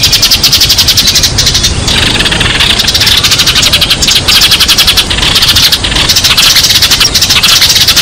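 A flock of sparrows chirping rapidly and without pause, many short overlapping chirps at once: the flock-calling chatter used as a lure call for sparrows.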